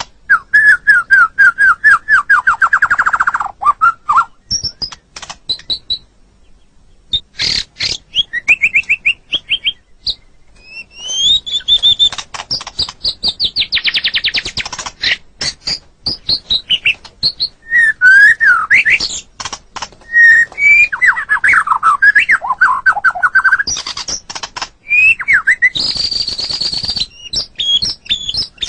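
White-rumped shama (murai batu) singing a long, varied song: fast trills, clear whistles that sweep up and down, and short high notes, phrase after phrase with brief pauses between.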